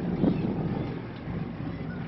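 Engine of a tour catamaran running steadily under way, a low hum, with wind buffeting the microphone.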